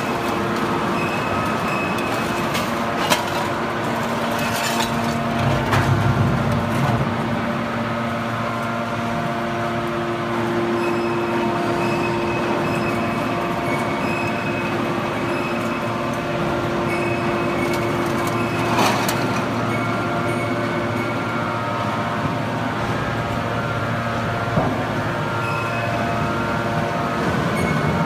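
Automatic horizontal scrap metal baler running: a steady machine drone with a few held whining tones from its hydraulic power unit, with a few short metallic knocks scattered through it.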